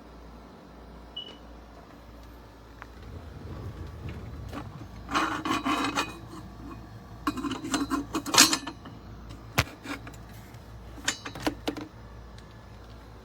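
Hard objects being handled: bursts of rattling and scraping, the longest about five seconds in and again around seven to eight and a half seconds, with a single sharp click near ten seconds and a shorter rattle after it.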